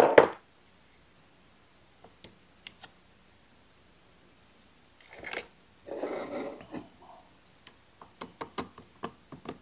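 Handling noises from a Stihl 023 chainsaw's carburetor and throttle linkage being worked off: a sharp snap at the start, a few faint ticks, a short scraping rub midway, then a quick run of small metal and plastic clicks near the end.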